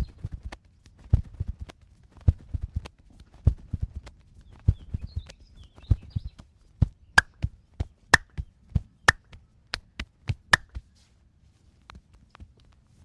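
Hands striking a person's body in a massage: quick runs of dull thumps, then from about seven seconds in a few sharper, louder slaps about a second apart, tailing off to light taps near the end.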